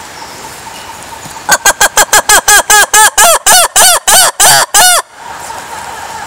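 Black-and-white ruffed lemur calling: a loud series of about fifteen quick calls, each rising then falling in pitch, starting about a second and a half in, slowing and lengthening as it goes, and stopping abruptly about five seconds in.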